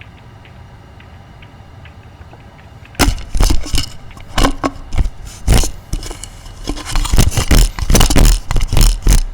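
A low hum with faint ticks, then about three seconds in a run of loud, irregular cracks and crashes, presented as the dishwasher's back end blowing out from being overloaded.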